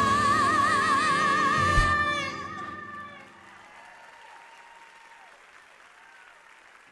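A female singer with a live band holds the song's final note with a wavering vibrato; the band stops about two seconds in and the voice fades out a second later. The audience then applauds, much more quietly.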